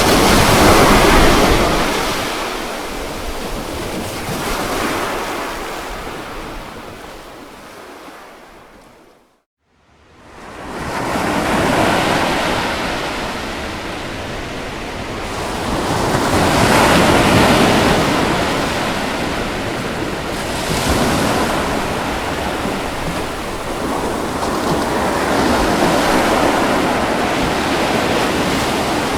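Ocean surf: waves breaking and washing ashore in slow surges that swell and ebb every few seconds. About nine seconds in, the sound fades almost to silence for a moment, then swells back.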